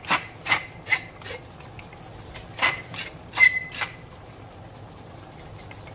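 Hand pepper mill grinding black peppercorns: short crackling twists, four in the first second and about four more a couple of seconds later.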